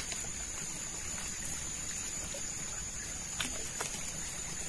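Water trickling in a shallow rain-filled ditch, with a steady high-pitched whine running underneath. A couple of faint clicks come about three and a half seconds in.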